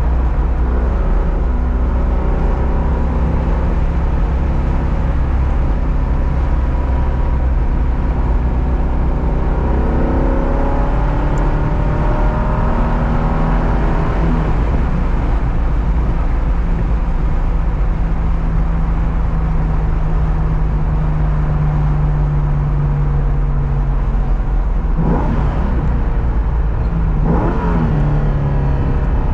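Car engine running hard at track speed, with a heavy low rumble underneath. The revs climb steadily for a few seconds, then change sharply twice near the end.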